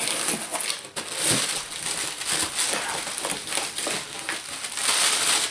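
Plastic bags and bubble wrap crinkling and rustling as they are handled and pulled out of a cardboard box, in irregular bursts that are loudest about a second in and near the end.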